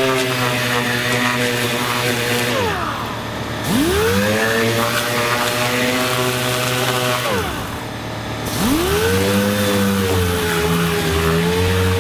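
Handheld orbital sander running against body filler on a sheet-metal firewall, a steady motor whine with grinding. It winds down about two and a half seconds in and again about seven and a half seconds in, spinning back up to speed about a second later each time.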